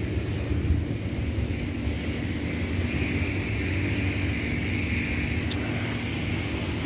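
A steady low mechanical rumble with a constant hum and a faint hiss above it.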